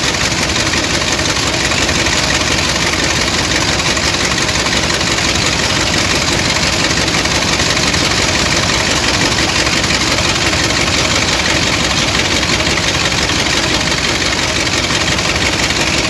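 Sand dredger's engine running steadily, a loud, even drone that does not change.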